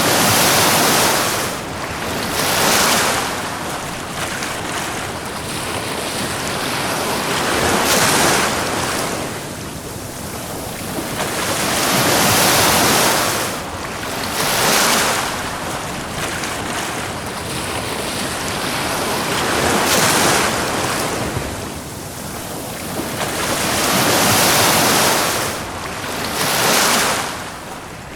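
Ocean waves breaking and washing up a beach, about eight surges that swell and fall away a few seconds apart, some coming in close pairs.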